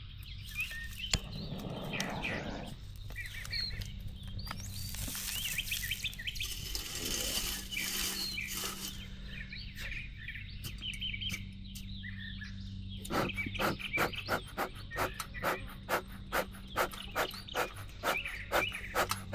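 Small birds chirping, then, from about two-thirds of the way in, a bee smoker's bellows pumped in a steady rhythm of about two puffs a second to get the smoker lit.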